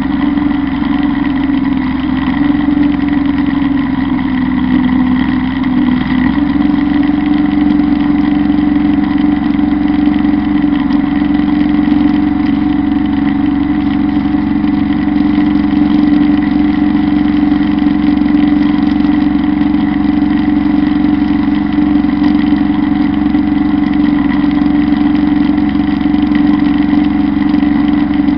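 Kubota Bulltra B1-17 compact tractor's diesel engine running steadily, driving a PTO-powered Zanon drum mower through tall grass.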